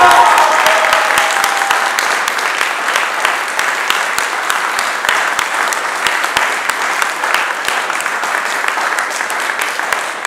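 Audience applauding, a dense steady patter of many hands that eases slightly toward the end; the performance's last held tones fade out in the first second or two.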